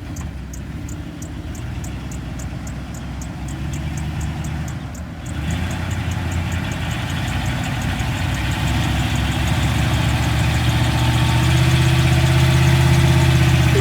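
Vehicle engine running, with a light even ticking over the first few seconds; about five seconds in it grows heavier and louder, and keeps getting louder to the end.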